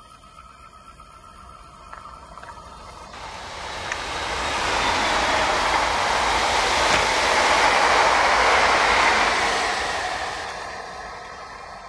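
Electric multiple-unit passenger train, two units coupled, passing close by: a rushing of wheels on rail that builds, peaks through the middle and fades away over the last couple of seconds.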